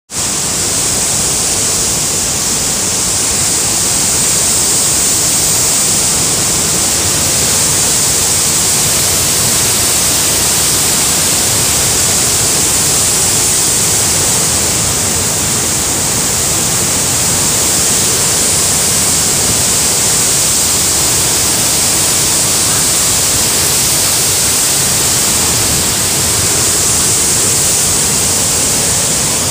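Torrent of muddy floodwater rushing and churning: a loud, continuous, even roar with a strong high hiss and no breaks.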